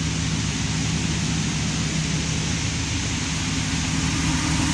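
Dodge Ram 1500's 5.7-litre Hemi V8 idling steadily, with no ticking: the clicking noise it made when started cold has been repaired.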